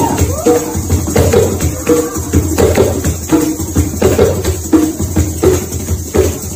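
Djembe played by hand in a fast, even rela pattern of quick strokes, with deeper drum tones recurring on a steady pulse, a rhythm meant to imitate a running local train.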